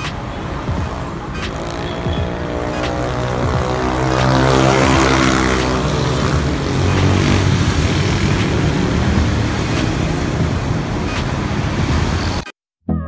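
Street traffic going past: motorcycle and car engines with tyre noise, one engine note swelling and falling as it passes close about four to five seconds in. The sound cuts off suddenly near the end.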